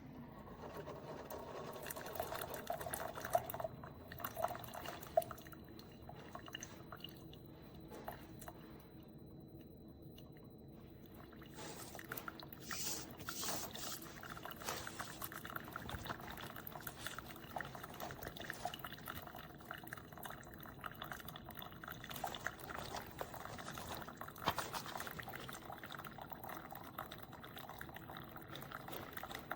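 Single-serve coffee maker brewing: water gurgling through and coffee pouring into the cup, with small clicks and sputters throughout.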